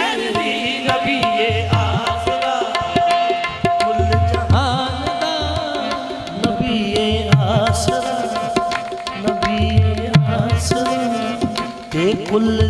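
Qawwali music: a harmonium holds a steady note while a hand drum keeps a quick beat and the singers' voices glide over it.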